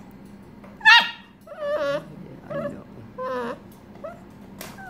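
St Bernard puppies whimpering and yipping: a sharp, loud yelp about a second in, then a string of high, wavering whines.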